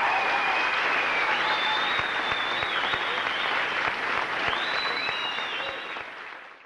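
An audience applauding, a dense steady patter of clapping with a thin high tone running over it for stretches, fading out at the very end.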